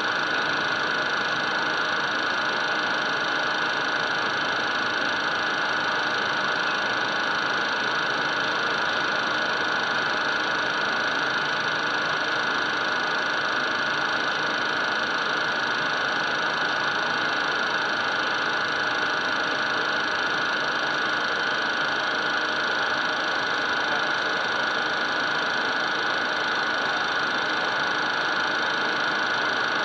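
Steady cockpit noise of a Cessna Citation twin-turbofan business jet on final approach: constant engine whine with a high, steady tone over rushing airflow.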